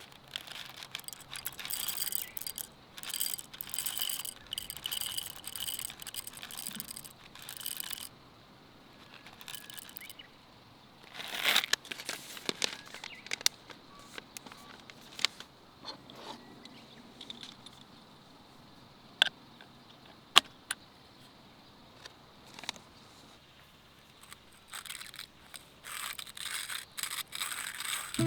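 Clinking, scraping and rustling of small objects being handled, in busy bursts over the first eight seconds and again around eleven to thirteen seconds, with scattered single clicks after.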